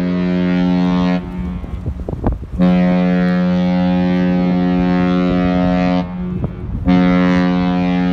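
Cruise ship's horn sounding long, deep blasts: one ends about a second in, the next lasts about three and a half seconds, and a third starts near the end. Wind buffets the microphone in the gaps between blasts.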